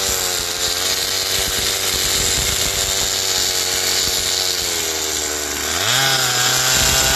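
Stihl chainsaw running under load while its bar shaves the sides of a log. The engine note sags a little as it cuts and rises sharply about six seconds in, then drops again.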